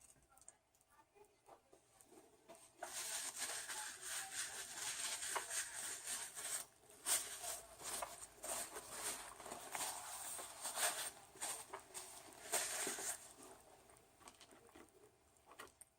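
Crackling, rustling handling noise from eating a fast-food meal, dense with small clicks and crinkles. It starts about three seconds in and stops about thirteen seconds in, with a brief break near the middle.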